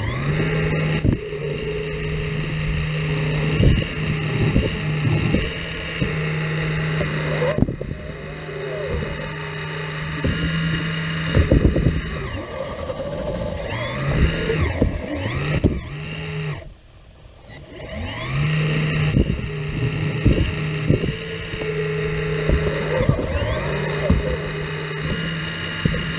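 CAT 235 hydraulic excavator working in sand: its steady engine and pump note steps up under load and drops back, with short knocks and scraping from the bucket and sand. The note falls away briefly about two-thirds of the way through, then picks up again.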